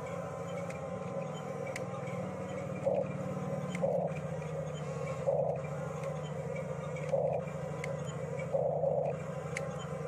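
Radio-controlled toy bulldozer pushing loose soil: a steady whir from its small electric motors and gears, with several short louder surges as it drives.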